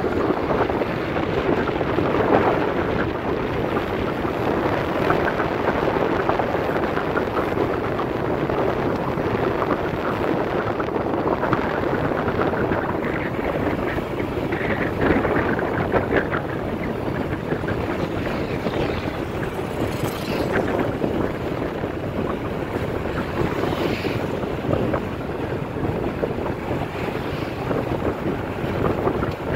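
Wind rushing over the microphone with the running noise of a moving motorbike underneath, steady throughout.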